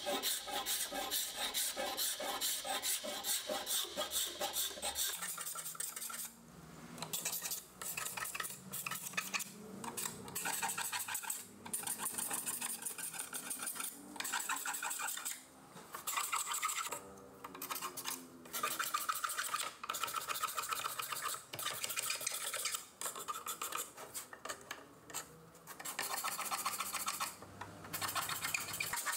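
Old dried white PVA glue being scraped by hand off a wooden bed rail: quick rasping back-and-forth strokes in runs of a few seconds, with short pauses between them. The old glue is being cleared so the joint can be reglued.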